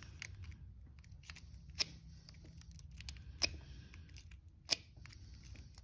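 Lock pick working inside a Pro Source weather-resistant padlock: faint scraping with a few sharp metallic clicks about every second and a half.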